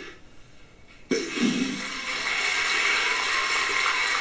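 Audience applause starting abruptly about a second in and keeping up steadily, with a short shout near its start.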